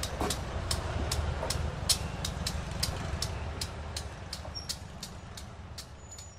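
Small diesel switcher locomotive's engine rumbling low as it slowly pulls a passenger car away, the sound fading as it goes. A sharp high ticking, about three a second, keeps on steadily throughout.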